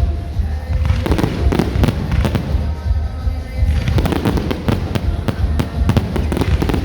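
Fireworks going off in rapid, irregular succession, with many sharp bangs and crackles over a continuous low rumble. Music plays underneath.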